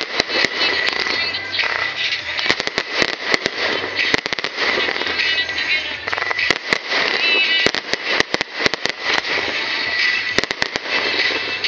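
Aerial fireworks exploding in many sharp bangs at an irregular, rapid pace, with crackling between them.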